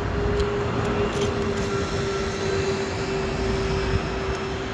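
A steady engine drone holding one even note throughout, with a few light clicks and scrapes of a steel trowel working mortar.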